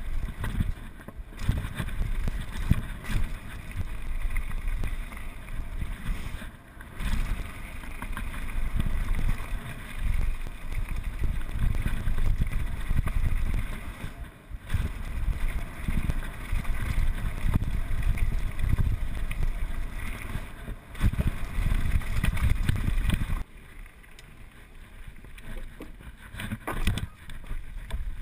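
Wind buffeting a helmet-mounted camera's microphone, mixed with the rumble and rattle of a downhill mountain bike on a gravel trail, with a few brief dips. The noise drops sharply near the end.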